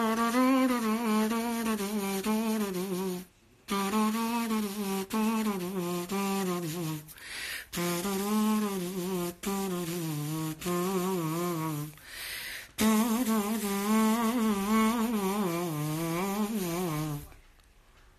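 A man humming a wordless melody with wavering, ornamented pitch, in four long phrases with short breaths between them; the humming stops about a second before the end.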